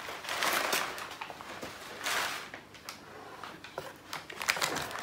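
Crumpled brown kraft packing paper rustling and crinkling as it is pulled out of a cardboard box, in a few separate bursts, with a few light clicks near the end.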